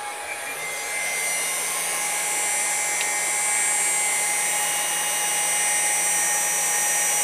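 Electric CNC router spindle driven by a VFD, spinning up to about 10,000 RPM in the first second or so, then running steady with a high whine.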